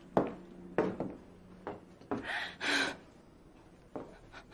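A woman crying: a few short sobbing gasps and sniffs, the two loudest near the middle, in a small room.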